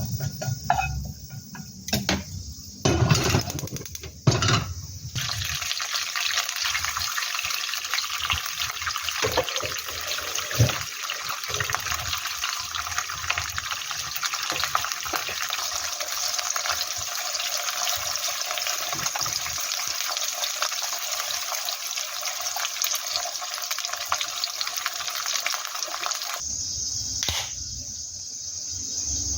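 A few knocks and clatters, then a kitchen tap running in a steady stream for about twenty seconds before it is shut off abruptly near the end.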